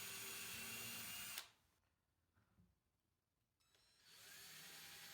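Power drill with a 1/8-inch bit running steadily while pre-drilling holes for brass screws, stopping with a click about a second and a half in. A fainter steady hiss starts about four seconds in.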